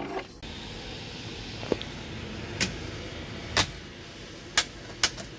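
Toggle switches on a Boeing 737's overhead cockpit panel being flicked one by one, sharp clicks about once a second, over a steady hiss.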